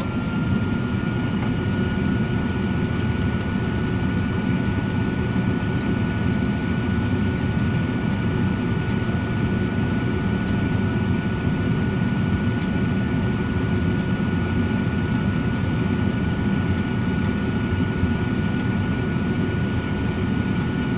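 Cosori 13-quart air fryer oven running steadily: a steady fan rush with a thin high whine on top, which edges up slightly in pitch about half a second in.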